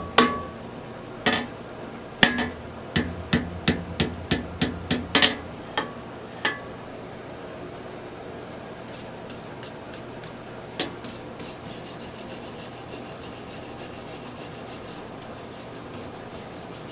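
Hand hammer striking a hot horseshoe on an anvil, folding it back on itself for a forge weld. There is a run of about a dozen ringing blows in the first six seconds, then a single blow a few seconds later, over a steady low hum.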